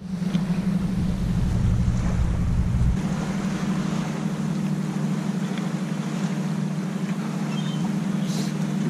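A steady low mechanical hum from machinery aboard a sailing catamaran, with wind rumbling on the microphone that drops away about three seconds in.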